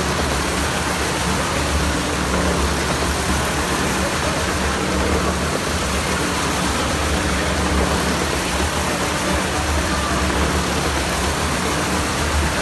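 Go-kart engine running at a steady speed as the kart circles the Wall of Death, a constant drone under a wide haze of noise.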